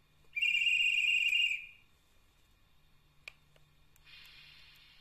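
Steam whistle of a Märklin H0 Class T3 model steam locomotive: one steady blast of about a second and a half, starting half a second in. A single click and a soft hiss of steam follow near the end.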